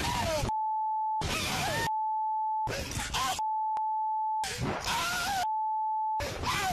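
A steady, single-pitched censor bleep cuts in four times, each lasting about a second and blanking out everything else. Between the bleeps come short snatches of the riders' shouting and screaming over wind noise.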